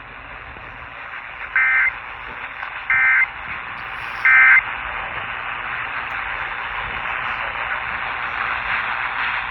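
Emergency Alert System end-of-message data bursts: three short, identical squawks of digital tones, about a second and a half apart, closing the station's EAS test. Heard through a radio with steady static hiss underneath.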